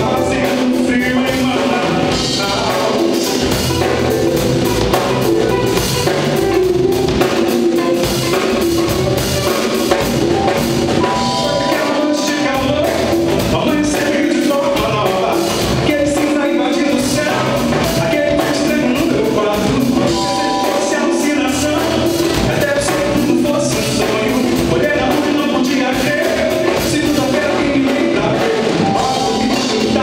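Live band playing a song: drum kit, electric bass and electric guitar, keyboards, with a male lead singer.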